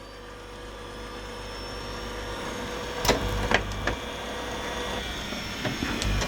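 VCR tape mechanism whirring, with its motor and head drum running, slowly getting louder, and a few sharp mechanical clicks about three seconds in and again near the end. The tape-loading mechanism is faulty, so the unit keeps misbehaving and shutting itself off.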